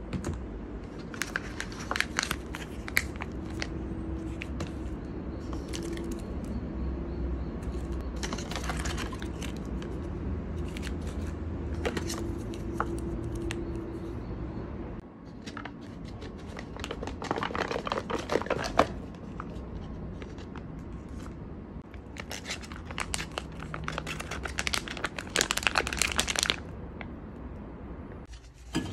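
Plastic food packaging being torn open and crinkled in several separate bursts of rustling, over a steady low hum.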